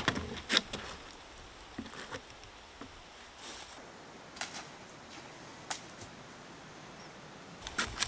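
A few scattered sharp clicks and snaps over faint outdoor background: a cluster right at the start, then single ones about four and a half, six and eight seconds in.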